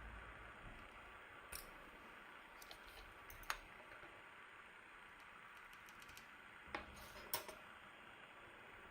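A few scattered, separate clicks of Keychron mechanical keyboard keys being pressed, the loudest a little over three seconds in and a pair near the end, over faint hiss.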